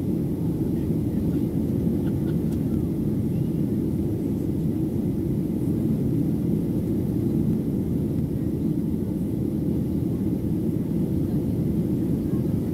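Steady, low cabin drone of a Boeing 737-700 in flight, heard from inside the cabin at a window seat over the wing: its CFM56-7B turbofan engines and the airflow over the fuselage.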